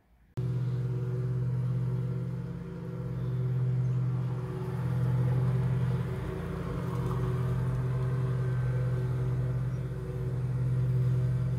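Lawn mower engine running steadily outside, cutting in a moment in and swelling and fading in loudness several times as the mower moves back and forth across the lawn.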